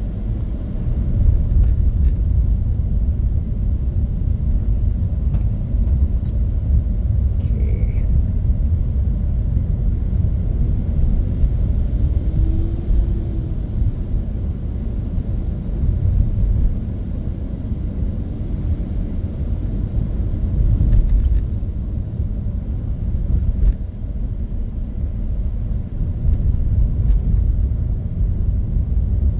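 Steady low rumble of a car driving on wet road, heard from inside the car, with no clear events standing out.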